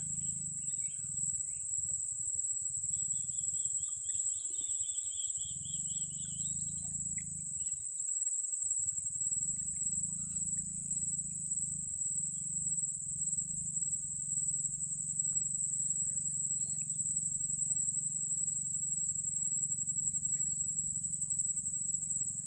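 Insects, cricket-like, keeping up a continuous high-pitched trill, with a second, lower pulsing trill joining for a few seconds near the start. A low rumble runs underneath and drops out briefly about eight seconds in.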